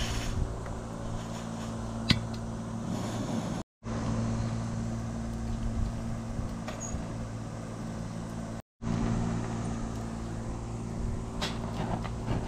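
Steady low hum and hiss, with a single sharp click about two seconds in as the gas burner is lit, and light metallic clicks near the end from the aluminium mess tin's lid being closed.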